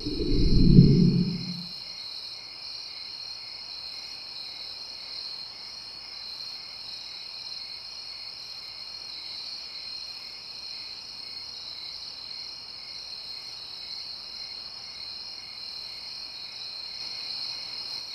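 A deep, low boom in the first second and a half, then a steady night ambience of chirping crickets.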